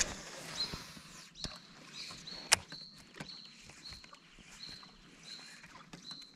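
Casting and working a lure on a baitcasting rod and reel: a sharp click as the cast goes out, another loud click a couple of seconds later, and a short high tone that repeats about every two-thirds of a second.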